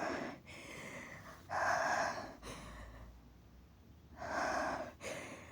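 A woman's sneeze tailing off at the very start, then two loud, sharp gasping breaths, about a second and a half and four seconds in, each under a second long, and a shorter one near the end: the hitching breaths of a sneeze build-up.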